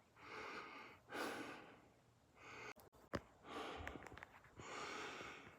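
A person breathing close to the microphone: about five soft breaths a second or so apart, with a couple of sharp clicks around the middle.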